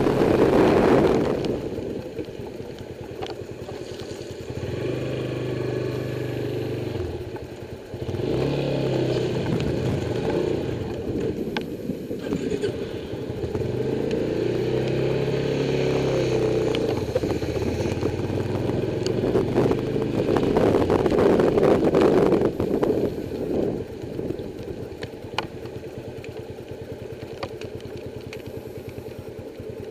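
Motorcycle engine running under way, its pitch rising and falling several times as the throttle opens and closes. A loud rushing noise runs over it, strongest at the start and again about twenty seconds in.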